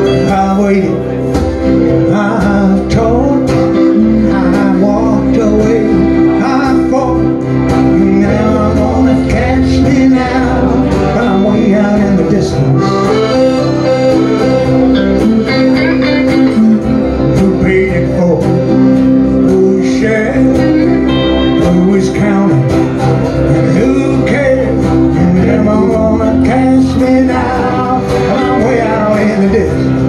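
Live band playing a song on acoustic guitar, electric guitar and piano accordion, with a man singing.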